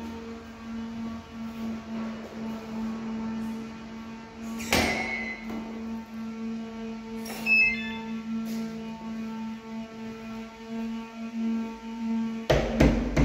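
A steady electrical hum, with a sharp knock about five seconds in, a click with a brief metallic ring a little later, and a cluster of louder knocks near the end.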